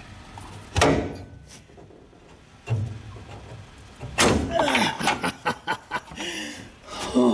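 Metal clanks and clicks from a 1964 Ford Thunderbird trunk hinge as its tightly loaded tension bar is levered into place with a hand tool. A sharp clank comes about a second in and another near three seconds, then a run of quick knocks and clicks as the bar seats.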